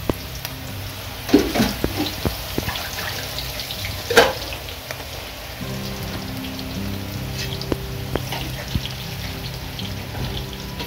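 Sliced pancita mushrooms frying in a pan, with a steady sizzle and a few sharp knocks. Background music with held notes comes in about halfway through.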